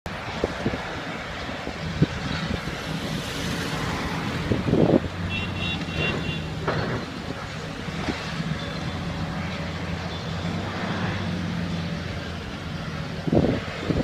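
A heavy diesel engine running steadily, most likely the long-reach demolition excavator working on the tower block, with a few short knocks and crunches over it.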